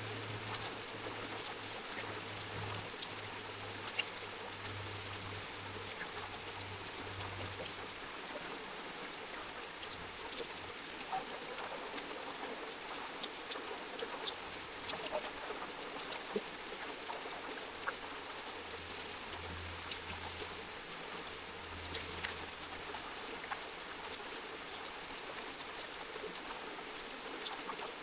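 Steady rush of flowing water from a creek, with scattered small ticks and drips.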